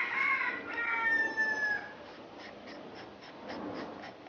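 A rooster crowing once: one long call of about two seconds that sags slightly in pitch at its end. It is followed by faint, regular ticks at about three a second.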